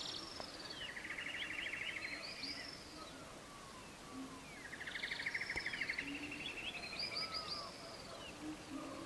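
Birdsong: a bird sings the same phrase twice, each a fast buzzy trill followed by quick high arching notes. Faint low tones sound underneath.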